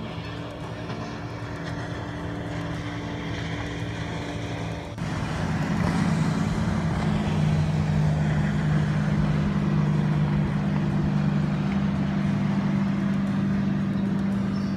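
Motorboat engine running steadily with a low hum as the boat crosses the water, stepping up sharply in loudness about five seconds in.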